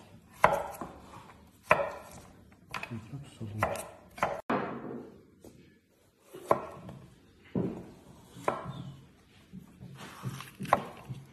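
Kitchen knife chopping food on a wooden cutting board: slow, separate strokes about once a second, each a sharp knock with a short ring.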